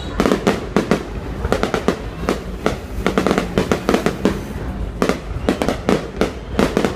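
Fireworks display: a rapid, irregular run of sharp bangs and cracks, several a second, over a low rumble.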